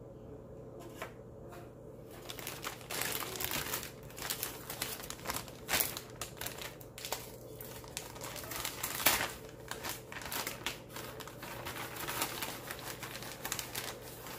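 Packaging crinkling and rustling in irregular bursts as it is handled, starting about two seconds in, with one sharper crackle near the middle.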